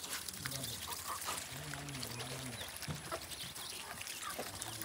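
Domestic geese feeding from a metal bowl of grain: a patter of small clicks and rustles as their bills work through the grain.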